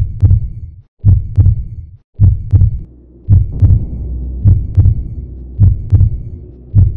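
Heartbeat sound effect: a slow, heavy double thump (lub-dub) repeating about once a second, with a faint low hum behind it from about halfway.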